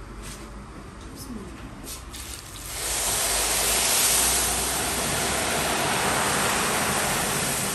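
Water poured in a thick stream into a large metal pot of toasted small pasta, adding the cooking water to the browned macaroni. A few faint clicks, then the gush of water starts suddenly about three seconds in and stays steady.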